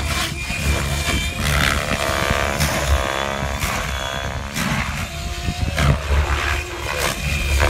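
Gaui X7 electric RC helicopter in 3D flight. Its rotor blades and Scorpion 4525 electric motor make a whining, whooshing noise that rises and falls in pitch as the head is loaded, with repeated blade-slap pulses through the manoeuvres.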